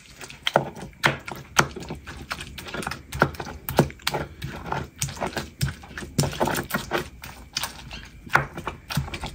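Stone pestle (tejolote) knocking and grinding in a stone molcajete as it crushes roasted tomatoes and chiles into salsa: irregular knocks of stone on stone, about one or two a second.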